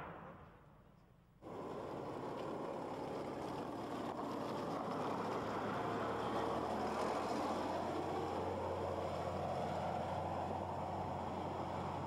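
Wheeled armoured personnel carrier's engine running as it drives past on a dirt road, a steady rumble with a low hum that grows stronger about halfway through. It opens on the fading tail of a loud bang.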